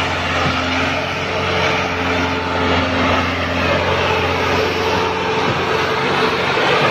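Massey Ferguson 385 tractor's four-cylinder diesel engine running hard and steady under heavy load as it pulls a fully loaded sugarcane trolley across soft ground.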